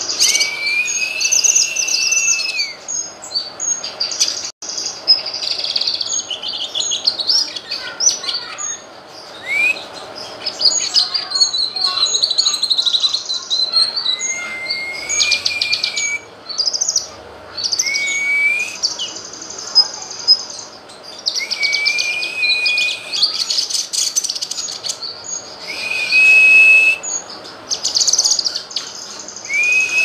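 Cucak kinoy singing a varied song, phrase after phrase: long whistled notes that rise and then hold steady, mixed with rapid high chattering and trills.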